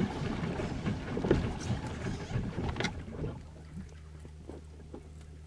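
Water splashing and sloshing against a small plastic boat's hull as the boat is manoeuvred. About three seconds in, it settles to a quieter, faint, steady low hum.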